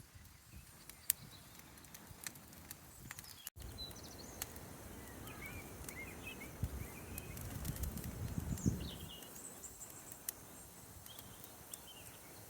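Quiet outdoor ambience with small birds chirping a few times, over a low rumbling haze; two low thumps stand out, the louder one about three-quarters of the way through.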